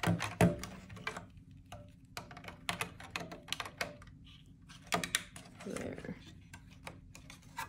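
Plastic Lego bricks clicking and tapping as they are handled and pressed onto a model, a run of irregular small clicks.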